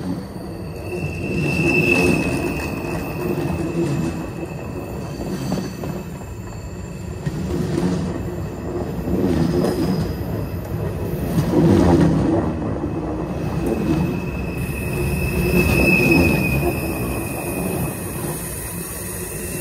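Freight train's hopper cars rolling over the rail just beside the microphone: a rumble that swells each time a set of wheels passes. A thin, high, steady wheel squeal runs through the first few seconds and comes back near the end.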